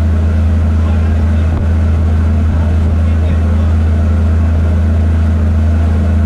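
A cargo barge's engine running steadily under way: a loud, unbroken deep hum.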